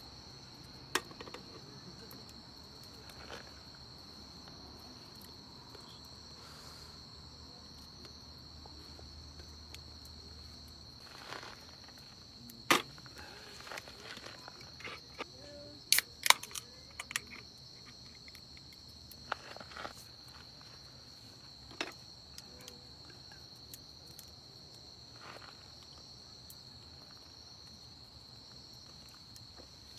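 A steady high-pitched insect chorus, with scattered sharp clicks and knocks; the loudest knocks come about thirteen and sixteen seconds in.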